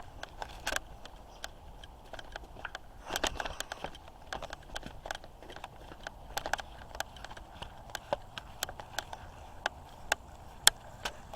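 Footsteps crunching through dry brush. Irregular crackles and snaps, about two or three a second, with a short rustling scrape about three seconds in.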